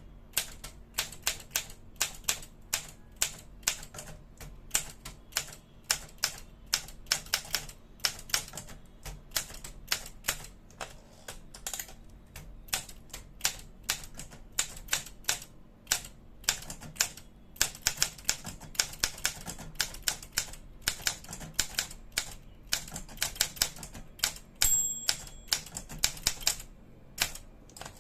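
Olympia SM7 manual portable typewriter being typed on: a fast, uneven run of key strikes with short pauses. A short bell ring comes about 25 seconds in, the margin bell warning that the carriage is nearing the end of the line.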